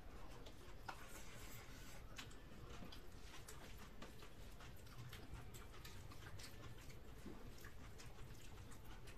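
Faint wet clicks and smacks of eating rice and dal by hand: chewing, and fingers mixing and squishing the food on steel plates.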